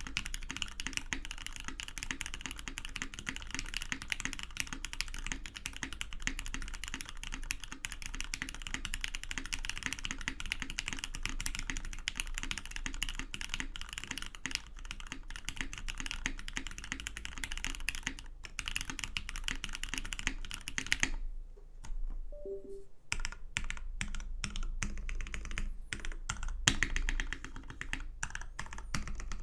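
Typing on a zekk.works Seulgi V2 custom mechanical keyboard with an aluminium plate, lubed Cherry MX Black linear switches and NCR SAU dye-sub keycaps: fast, continuous keystrokes. About two-thirds of the way through the typing stops for a couple of seconds, then resumes as slower, separate keystrokes.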